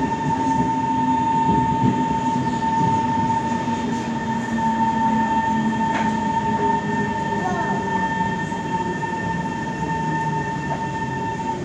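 Kawasaki C151 metro train running and slowing, a steady high whine from its traction motor equipment over a lower hum that falls slowly in pitch. The whine cuts off suddenly at the end.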